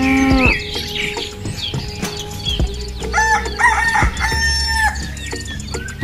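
Chickens clucking and a rooster crowing, with the crow about halfway through, over a steady background music track.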